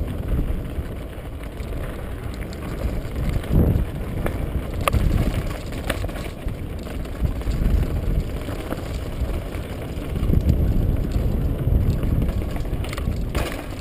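Mountain bike rattling over a rocky downhill trail at speed, with wind rumbling on the microphone and a few sharp knocks as the wheels strike rocks.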